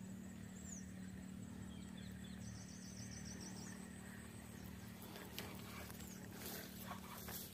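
Faint outdoor ambience with birds calling: a single falling chirp, then a quick run of about eight high notes, over a steady low hum. A few brief rustles and clicks come near the end.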